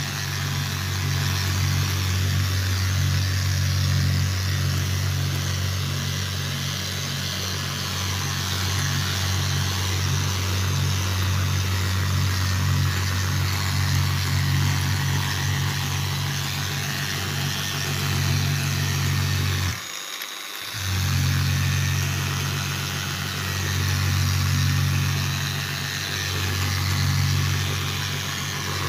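Handheld orbital sander running steadily with a low hum and a hiss, wet-sanding a scratch out of a vanity sink top. It cuts out for about a second about two-thirds of the way through, then runs again.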